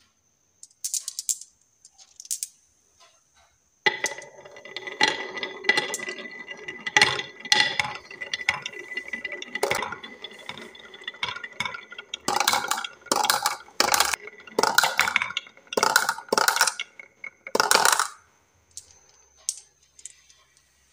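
Green balls rolling one after another down a HABA wooden wavy slope, rattling from side to side along the winding groove. Before they set off there are a few clicks, and a run of loud, sharp clacks comes near the end.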